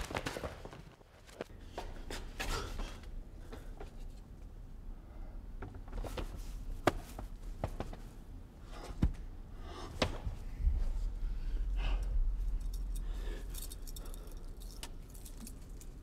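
Small metal objects jangling and clicking in irregular short rattles, with a steady low rumble for a few seconds past the middle.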